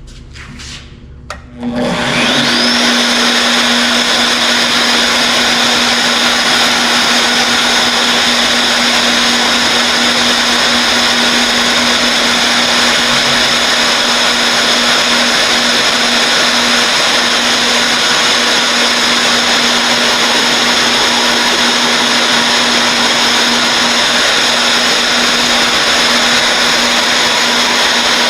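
An electric drill fitted with a 1.25-inch annular cutter starts about two seconds in, after a few short knocks, and runs steadily as it drills a hole in half-inch plate.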